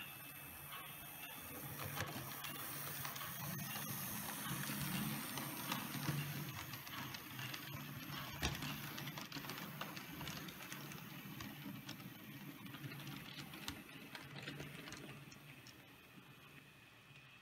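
Märklin H0 model train, a diesel locomotive hauling a mixed train on three-rail track, running past: a low motor hum with many small wheel and track clicks. It grows louder, then fades near the end as the train moves away.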